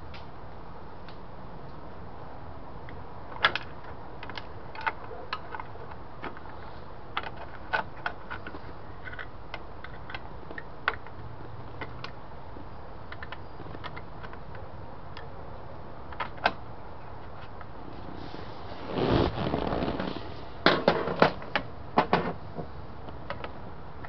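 Small screwdriver tip clicking and scraping against the notched metal nut of a car's dash light switch as it is worked round to tighten it: scattered single clicks, a longer scraping rattle about three-quarters through, then a quick run of clicks.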